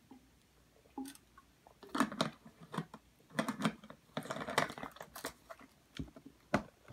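Close handling of a plastic water bottle while drinking: an irregular run of short clicks, knocks and rustling bursts, starting about a second in and stopping shortly before the end.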